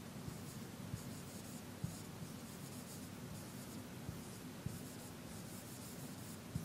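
Dry-wipe marker writing on a whiteboard: faint scratching strokes.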